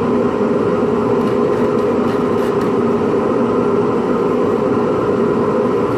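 An electric motor running steadily with a constant droning hum, with a couple of faint clicks of small parts being handled about two and a half seconds in.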